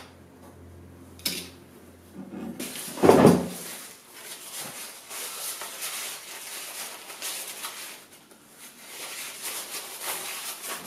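A couple of small knocks, then a loud thump about three seconds in. After that, a cloth rubs and wipes over a turned wooden spindle in two long stretches.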